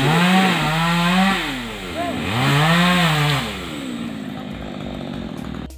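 Chainsaw engine revving up twice, each burst held for about a second, then dropping back to a lower idle; the sound cuts off abruptly near the end.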